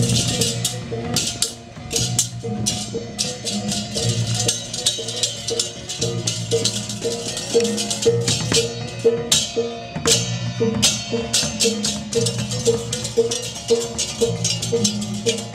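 Balinese processional gamelan (baleganjur) playing on the march: drums, clashing cymbals and small gongs. A small gong beats steadily about twice a second over deeper gong tones, with many sharp cymbal and drum strokes.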